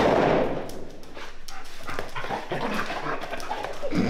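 German Shepherd-type dogs vocalizing excitedly, whining and giving short barks, as they jump on and greet a man.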